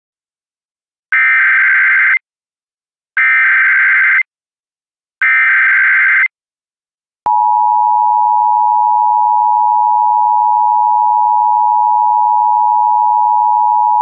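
Emergency Alert System SAME header: three loud, harsh bursts of digital data tones about a second each and a second apart, encoding a Law Enforcement Warning. About seven seconds in comes the steady two-tone EAS attention signal (853 and 960 Hz), which announces the alert.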